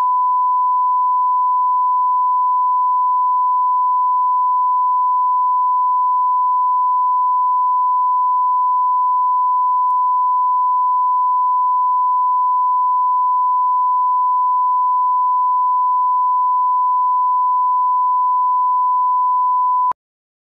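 Broadcast line-up test tone: a steady 1 kHz reference tone played with colour bars for setting audio levels, one unchanging pitch that starts abruptly and cuts off suddenly near the end.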